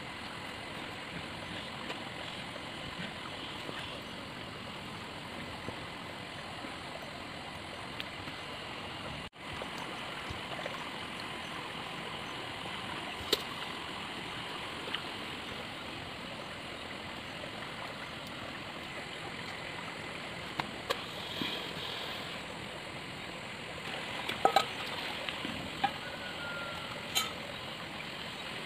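Steady rushing outdoor background noise, with a few short sharp clicks and knocks, most of them in the second half.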